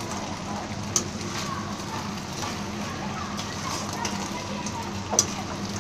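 Chilli sauce sizzling in a metal kadai as fried baby corn pakoras are stirred through it, with sharp clicks of the spoon against the pan, the loudest about five seconds in.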